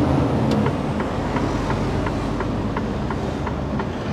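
Mercedes-Benz Actros lorry cab on the move: steady engine and road rumble, with the turn-signal indicator ticking quickly and regularly over it.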